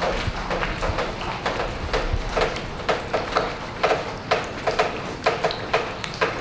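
Footsteps crunching and knocking on a debris-strewn concrete floor, about two steps a second.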